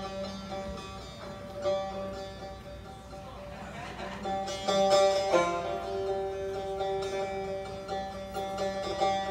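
Persian tar played live in an improvised set, a run of plucked notes each ringing briefly, with a steady held lower note entering about halfway through.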